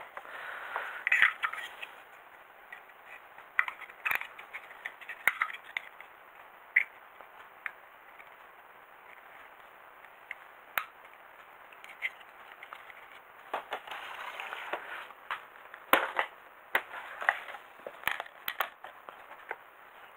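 Small plastic Robi2 robot kit parts being handled and fitted together on a tabletop: scattered sharp clicks and taps, with stretches of soft rustling.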